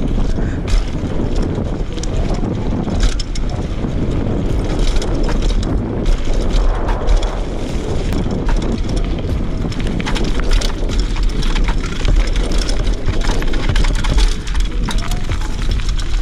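Riding noise from a Fuji Addy One.5 mountain bike on a fast dirt-trail descent: wind buffeting the chest-level action-camera microphone, tyres rolling over dirt and loose stones, and constant small clicks and rattles from the bike over bumps.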